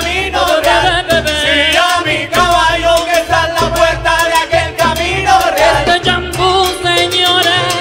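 Live salsa band playing, with timbales strokes over electric bass, keyboard and horns.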